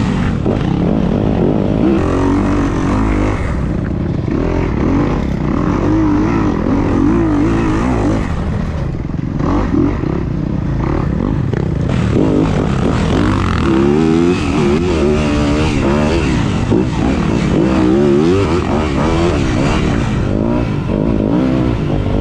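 Motorcycle engines running on a track, their pitch rising and falling again and again as the throttle is opened and closed.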